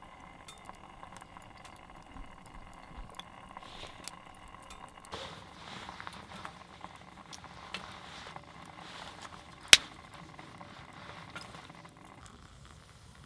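Small wood fire crackling and popping in a folding firebox stove, under a steady hiss of water heating toward the boil in a lidded metal mug on top. One sharp, loud crack about ten seconds in.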